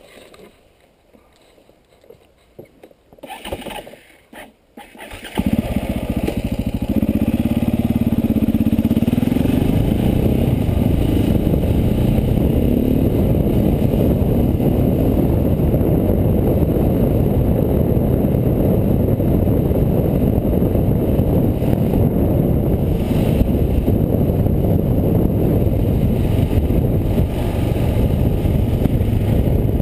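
KTM 450 EXC's single-cylinder four-stroke engine starts suddenly about five seconds in, after a few quiet knocks. It then runs loud and steady as the enduro bike rides along a dirt track.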